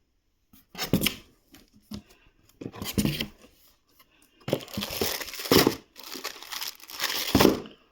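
Packaging being torn and crinkled by hand as a box is opened, in irregular loud bursts that start about a second in and run together over the second half.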